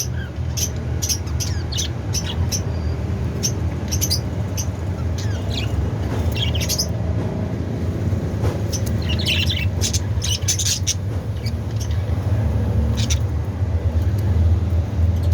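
A flock of budgerigars chirping and chattering, with many short high calls scattered throughout, busiest around the middle. Under them runs a steady low rumble.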